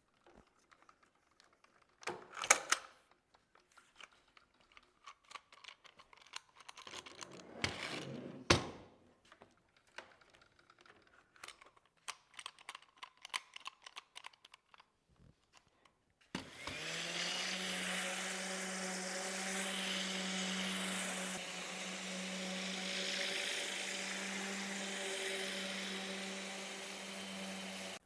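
Scattered light clicks and knocks of handling work, then about sixteen seconds in an electric power tool's motor starts, spins up briefly and runs on with a steady hum.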